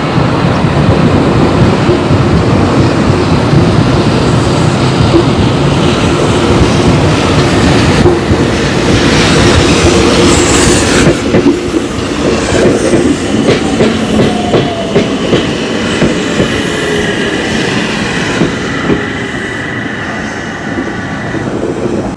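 A Tokyu デヤ electric inspection train passing close by: loud wheel noise with rapid clacking over the rail joints. After the middle a whine falls in pitch and a high steady tone follows, and the sound eases off near the end as the train moves away.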